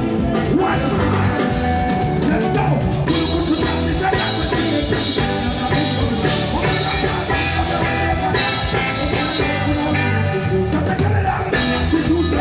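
Band music with drum kit, bass and guitar playing a steady beat, fuller and brighter from about three seconds in.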